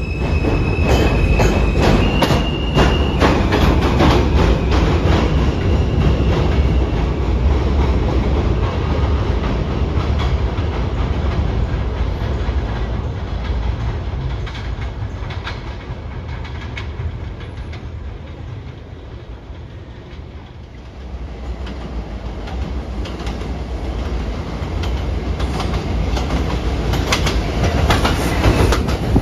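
Elevated New York City subway train pulling out of the station. A steady high propulsion whine in the first few seconds gives way to the rumble and rhythmic clatter of wheels over rail joints as the cars run past. The sound dies down about two-thirds of the way through, then the rumble and clatter of another train build up again near the end.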